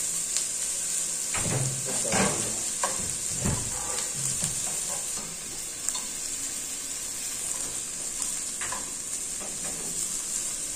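Sliced onions sizzling steadily in hot oil in a frying pan, being sautéed until translucent. A spatula scrapes and stirs through them several times in the first few seconds and once more near the end.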